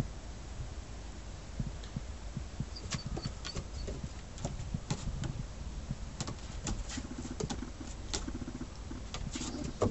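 Scattered light clicks and taps, a dog's paws and claws on a wooden deck and railing, over a low steady rumble.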